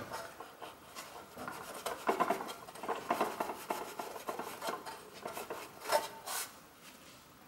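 Cloth rag rubbing and scrubbing over a Vespa's cooling fan wheel and fan cover: an irregular scratchy rustle with small clicks and knocks as the rag catches on the fan blades and cover slots.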